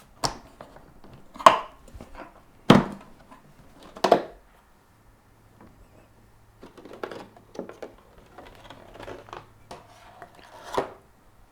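A boxed hole saw kit being opened and handled: four sharp knocks or clicks in the first four seconds, then quieter clinking and rustling as the parts are moved about.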